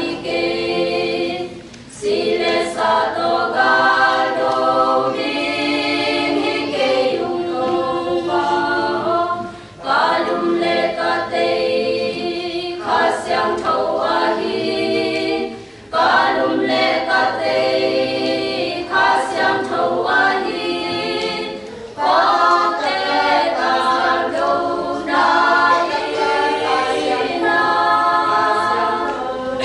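Women's choir singing unaccompanied, in long phrases broken by brief pauses for breath every six to eight seconds.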